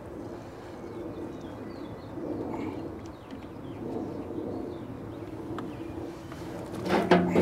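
Faint bird chirps over a steady low hum, then a sharp clunk near the end as the old spin-on hydraulic filter canister is handled.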